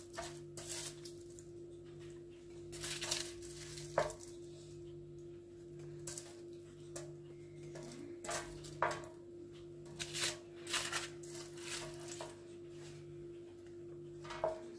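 Black spatula with a wooden handle scraping and tapping on a foil-lined baking tray, with the aluminium foil crinkling, in irregular short strokes as roasted peppers are lifted off it. A steady low hum runs underneath.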